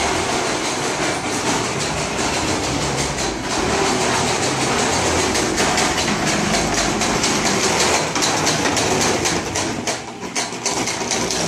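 Lawn mower engine running steadily, with a clattering rattle over the last few seconds.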